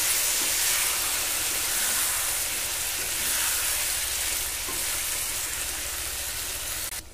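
Flat sim beans, chicken skin and tomato frying in oil in a kadai, a steady sizzle, with a wooden spatula stirring through them. The sizzle cuts off suddenly near the end.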